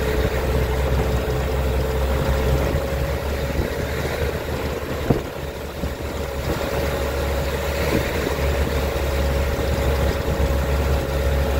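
Open-top jeep's engine running steadily as it drives along a village road, with a steady low rumble and hum. There is one sharp knock about five seconds in.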